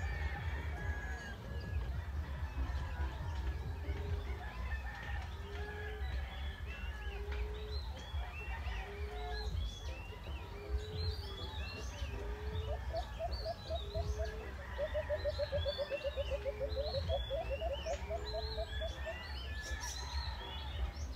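Emerald dove call: a low, soft coo repeated about every second and a half, with a fast run of short notes in the middle. Many high chirps of other small birds sound around it, over a steady low rumble.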